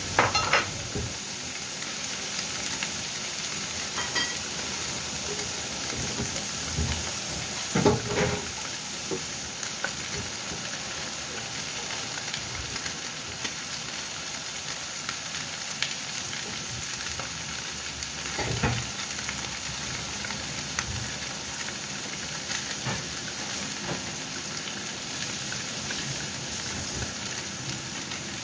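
Whole fish frying in a nonstick pan, a steady sizzle with a few louder crackles now and then.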